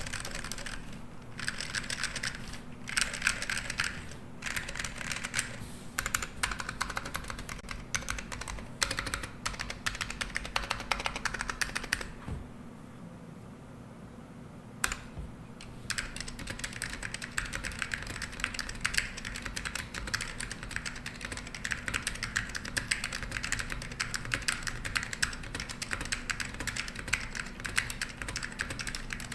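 Typing on a mechanical keyboard with vintage Alps SKCL green (Gen 1) switches on a black plate, under Apple AEK II keycaps: bursts of rapid keystrokes, a pause about twelve seconds in broken by a single click, then steady continuous typing.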